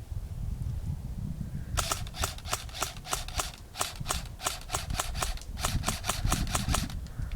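Airsoft gun firing a rapid string of sharp shots, about five a second for roughly five seconds, starting about two seconds in. A low rumble of wind and handling noise on the microphone runs underneath.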